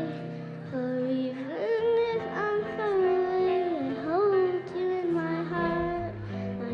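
A young girl singing solo into a microphone over an instrumental backing track, holding long notes that slide from one pitch to the next, with steady low accompaniment underneath.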